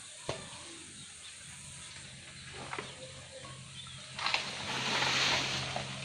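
Leaves and plants rustling as someone brushes through dense banana plants and undergrowth, swelling into a louder rush of leaves for about two seconds near the end. A sharp tap comes just after the start and a few light snaps in the middle.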